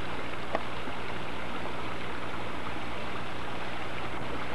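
Steady rushing noise with a low hum under it, and one short click about half a second in.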